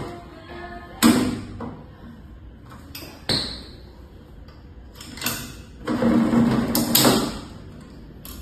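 Metal knocks and clatter from a caster wheel being fitted onto a steel cart base: sharp knocks about one, three and five seconds in, then a longer rattling, scraping stretch about six seconds in.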